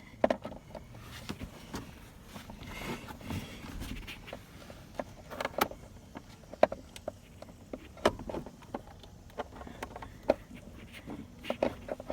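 Irregular sharp clicks and knocks with some scraping, from handling a child car seat's straps, buckles and latch hardware.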